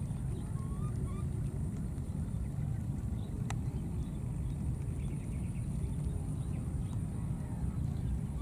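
Steady low rumble with a continuous thin high-pitched hum over it, a few faint short squeaky calls early on, and a single sharp click about three and a half seconds in.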